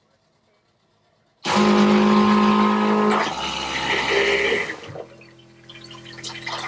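Jabsco electric marine toilet's pump motor switching on about a second and a half in, whining loudly with water rushing through it for about three seconds, then dropping to a quieter steady hum.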